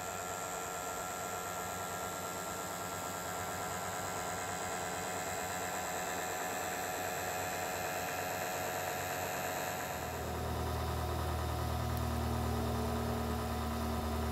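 Gas burner of a Gauge 1 live steam model locomotive (Aster DR 03 001) burning steadily with a hiss. About ten seconds in the sound turns to a low, steady rumble as the burner flames come close.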